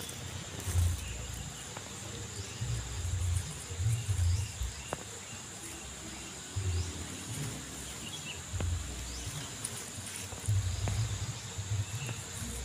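Irregular low rumbles of wind buffeting the microphone, over a steady high-pitched insect drone.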